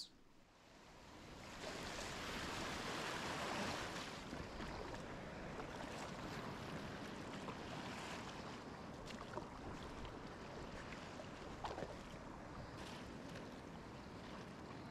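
Steady wash of sea water and wind around a kayak at sea. It fades in over the first couple of seconds, with a few faint clicks.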